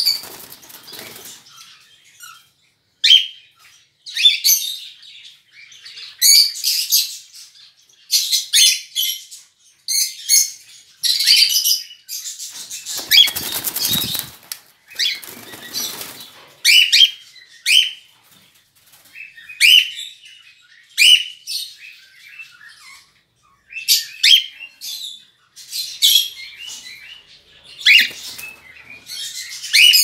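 Cockatiels flying about, their wings flapping in short flurries, mixed with brief high chirps and calls every second or two. One fuller, deeper flurry of wingbeats comes a little before halfway.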